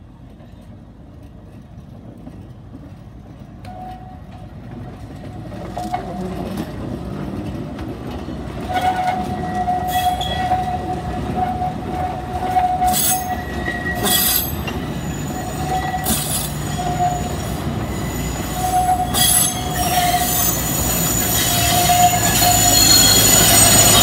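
Alishan Forest Railway narrow-gauge train rolling slowly past on a sharp curve, getting steadily louder as it nears. The wheel flanges squeal on and off against the rails, a high squeak broken by sharp metallic clicks. Near the end the diesel locomotive's engine rumbles loudly close by.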